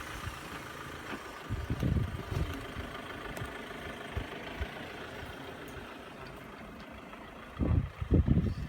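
Vehicle engine idling steadily just after being started, with a few loud low rumbling bursts about two seconds in and again near the end.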